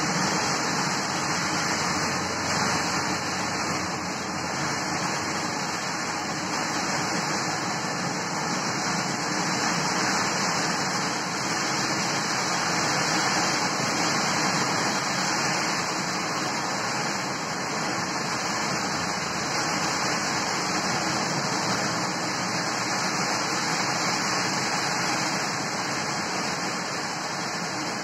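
Heavy rain pouring down in a steady rushing hiss, mixed with the tyre noise of traffic on the wet road.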